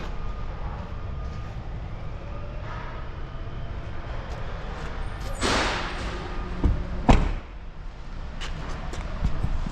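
A steady low rumble, with a brief rush of noise about five and a half seconds in, then a single sharp slam about seven seconds in, the loudest moment, and a few lighter knocks.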